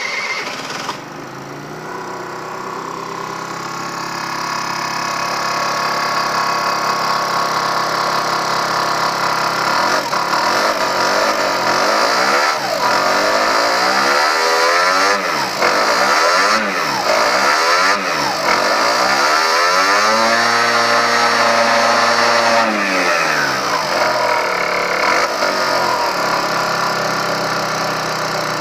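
Aprilia SR 50 R Factory scooter's 50cc two-stroke DiTech engine in stock form, idling at first, then revved repeatedly with quick throttle blips from about ten seconds in. Near the middle it is held at a higher rev for a few seconds before dropping back and blipping again.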